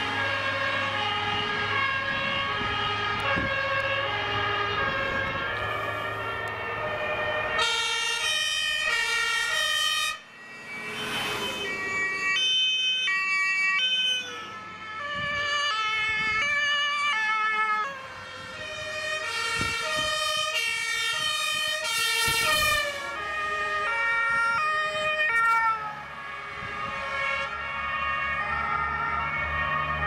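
German two-tone emergency sirens (Martinshorn) from a fire engine and an ambulance on an emergency run, several horns sounding their alternating high–low notes at once, out of step and at different pitches. A diesel engine hums under the sirens for the first few seconds.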